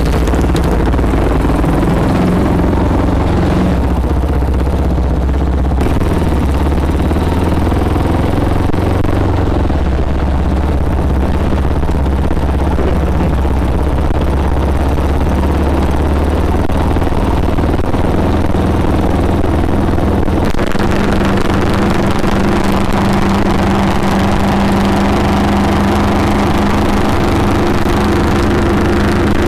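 A custom Yamaha Scorpio's single-cylinder four-stroke engine running steadily as the motorcycle is ridden. About 20 seconds in the sound changes, from the engine heard up close on the bike to the bike riding past on the road.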